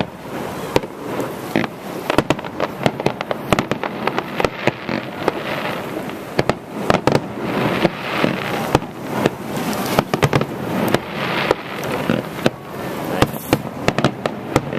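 Aerial fireworks display: an irregular, rapid string of sharp bangs from shells launching and bursting, with crackling between the bangs.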